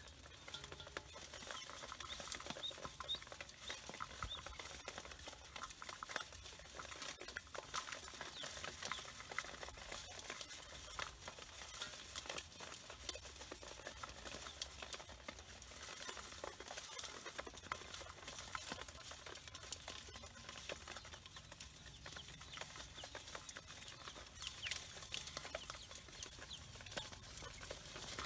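A basin full of ducklings peeping continually, with many small taps and scrabbles of their feet and bills on the metal basin.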